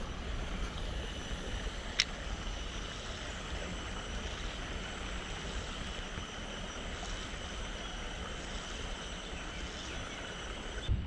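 Wind buffeting the microphone over steady mangrove-creek ambience, with a single sharp click about two seconds in.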